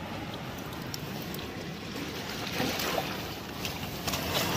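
Steady rush of wind and surf on a rocky shore. From about halfway in, a few light clicks and knocks come as a rubber-gloved hand handles the stones and shells.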